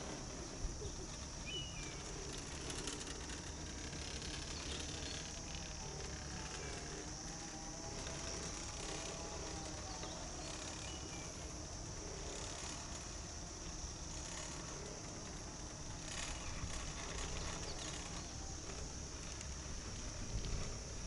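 Chairlift ride in summer: a steady high-pitched insect chorus from the grassy slope over a low rumble of wind and the moving lift. Near the end a few sharper clicks come as the chair nears a lift tower.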